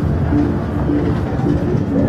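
Music: a run of short, steady held notes over the constant noise of a busy street.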